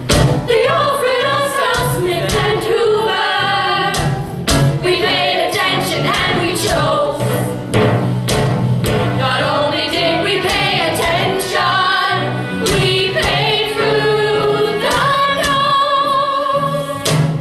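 Ensemble of voices singing together in a musical-theatre chorus number, with sharp hits in the music.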